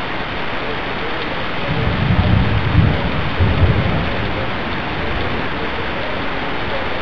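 Steady rain, with distant thunder rumbling low. The thunder swells about two seconds in and dies away by about four seconds.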